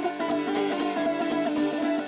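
Shurangiz, a Persian long-necked lute, played in a solo improvisation: a quick run of plucked notes over a steady ringing lower note.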